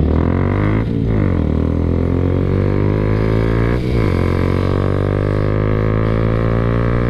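Honda Grom motorcycle engine accelerating under load, its pitch climbing steadily, with a short dip at each upshift about one and about four seconds in.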